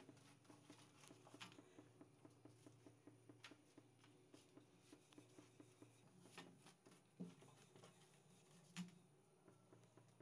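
Near silence: faint room tone with scattered light ticks and two soft knocks in the second half.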